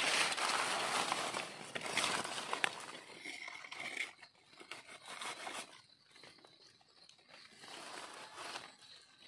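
Dry leaf litter rustling and crunching as mushrooms are cut and pulled out of the forest floor with a knife, with a few sharp clicks in the first seconds. It becomes quieter after about four seconds.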